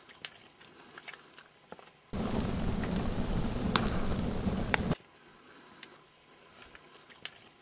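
Wood fire burning: a steady rushing noise with a few sharp crackles starts suddenly about two seconds in and cuts off about three seconds later. Before and after it there are only faint small crackles and ticks.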